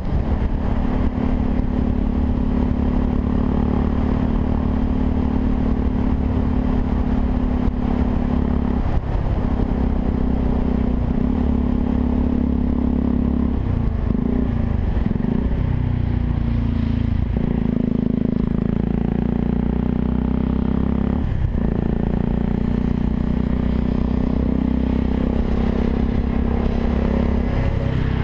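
Yamaha WR 125 R's single-cylinder four-stroke engine running through an aftermarket Takkoni exhaust, its steady note broken by several brief drops in throttle. Wind buffets the microphone.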